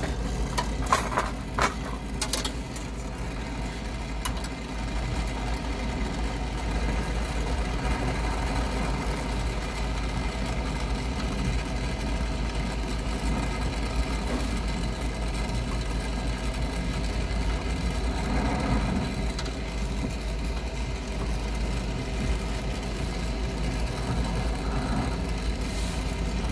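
Steady rushing of a brazing torch flame held on a copper refrigerant line joint, with a few sharp clicks in the first couple of seconds.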